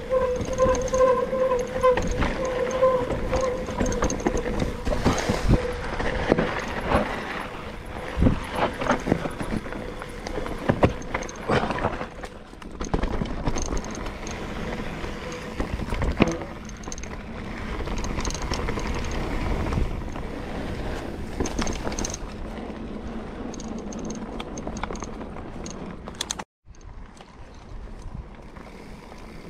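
Mountain bike rolling over a dirt forest trail: tyre and wind noise on the bike-mounted camera, with frequent knocks and rattles as the bike goes over bumps. A steady tone sounds for the first few seconds, and the sound drops out briefly near the end.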